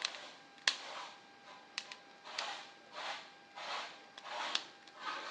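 Serving spoon scraping and clinking in a cooking pot while food is dished out: a few sharp clicks among repeated soft scrapes.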